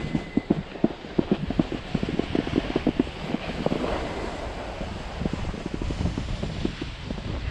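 Skis sliding and scraping over packed snow, with a rapid, irregular clatter through the first half, and wind rushing over the microphone.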